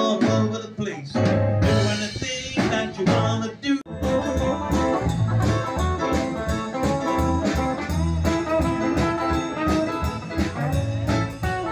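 Live band playing: electric guitar and bass over a steady beat. The music changes abruptly about four seconds in to a fuller, denser passage.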